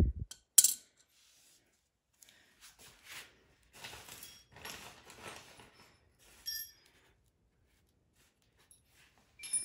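Small metal hand tools being handled: a sharp click just after the start, then a few seconds of scraping and rustling with a light ringing clink, and more clicks near the end.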